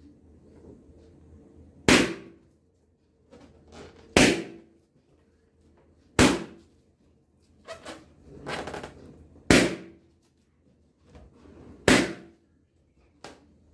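Inflated rubber party balloons popping one after another as they are pricked with a needle: about five sharp, loud bangs roughly two seconds apart, with a smaller pop near the end.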